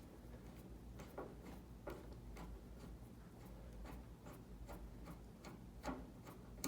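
Faint, irregular clicks and light metallic ticks of a hand screwdriver working long fine-thread screws out of a space heater's casing.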